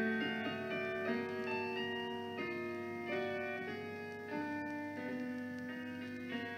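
Slow background piano music: held notes and chords, with a new note or chord every half second to a second.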